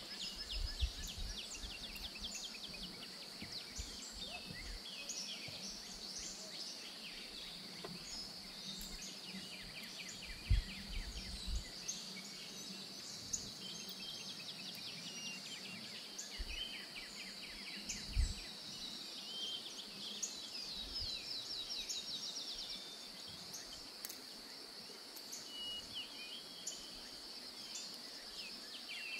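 Outdoor nature ambience: birds chirping and trilling in short repeated phrases over a steady high-pitched insect buzz. A few low thumps come through, the strongest about ten and eighteen seconds in.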